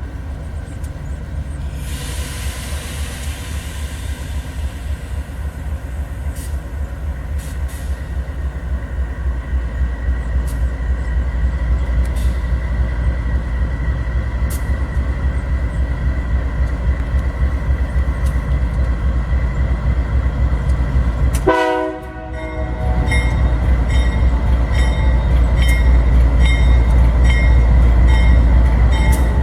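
Diesel freight train passing close by: a deep engine and rail rumble that builds, with clicks of wheels over the rail. About three-quarters of the way through comes a short pitched blast, then a steady, regular clatter of wagons with a faint squeal.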